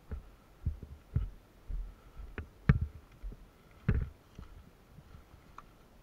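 Dull, uneven thumps, roughly one to two a second, some sharper than others.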